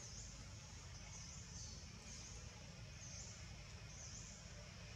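Forest ambience: a faint, steady high-pitched buzz that dips in pitch and comes back about once a second, over a low rumble.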